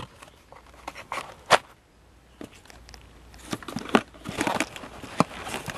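A paper receipt being handled, crinkling and rustling with sharp little clicks: one loud click about a second and a half in, and busier handling noise from about three and a half seconds on.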